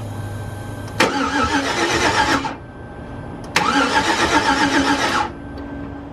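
GMC Yukon engine cranking on the starter in two tries of about a second and a half each, without catching: it is getting no spark and no injector pulse.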